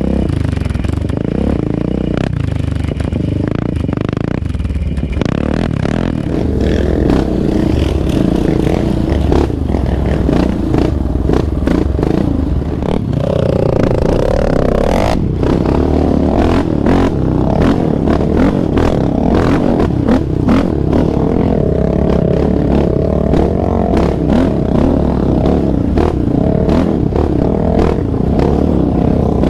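Sport quad engines, among them a Yamaha Raptor 700R's big single-cylinder four-stroke, running hard along a sandy dirt trail, the pitch rising and falling with the throttle. Constant clatter and scraping of dirt and debris and wind buffeting on an onboard camera mic ride over the engine sound.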